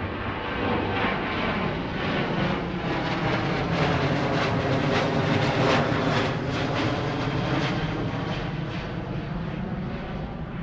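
Boeing 737 airliner's twin jet engines roaring as it flies low overhead. The roar swells to its loudest about halfway through, then fades slowly as the jet moves away.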